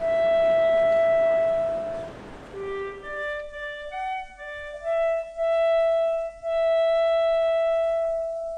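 Background music: a slow solo clarinet melody with long held notes and short pauses between phrases. A hiss of background noise lies under the first three seconds, then drops away.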